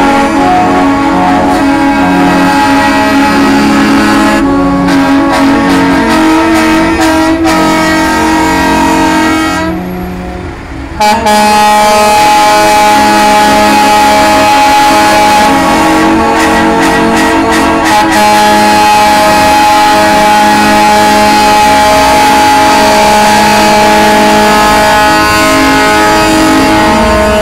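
Semi-truck air horns sounding together in a loud, held chord of several steady tones. They drop out briefly about ten seconds in, then sound again and hold steady.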